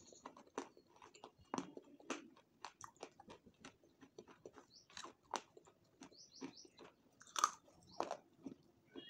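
Close-miked chewing and biting: irregular soft crunches and wet mouth clicks from a person eating.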